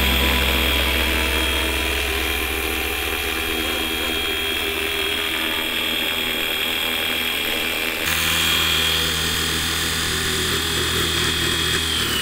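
Fly Wing UH-1 Huey RC helicopter in flight: the steady high whine of its brushless motor over the low hum of the spinning rotor. About eight seconds in, the sound shifts to a closer, heavier rotor hum, heard from a camera mounted under the helicopter.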